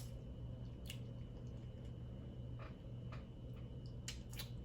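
Faint eating sounds of a seafood meal: soft chewing with a few small clicks and wet squishes, over a steady low hum.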